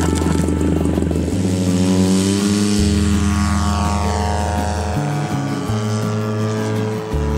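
Radio-controlled model airplane's engine and propeller droning steadily through a low pass, its pitch dropping partway through as it goes by.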